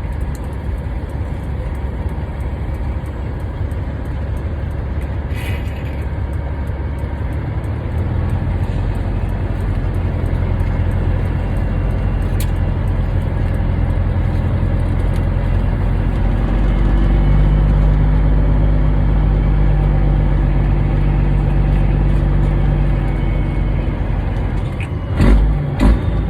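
Diesel engine of a 2002 Peterbilt 387 semi truck running as it pulls ahead, its note rising about eight seconds in and again around halfway, then easing off, with a couple of short knocks near the end.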